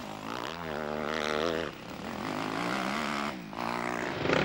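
Enduro motorcycle engine revving hard, its pitch rising and falling as the rider works the throttle through a dirt turn, with short drops in the revs about halfway through and again near the end.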